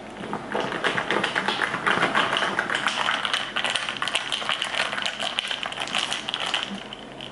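Ice cubes clinking rapidly against a glass mason jar as a drink is stirred briskly with a straw. The clinks stop near the end.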